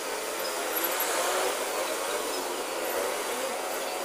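Steady outdoor background hiss with faint, indistinct voices.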